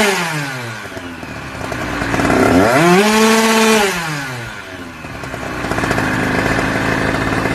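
A small engine revving: the revs fall in the first second, climb again about two seconds in and hold for about a second, then drop back and settle to a steadier running speed near the end.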